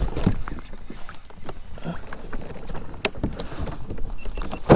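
Scattered knocks and rattles of gear being handled on a plastic fishing kayak, with one sharp knock about three seconds in, over a steady low rumble.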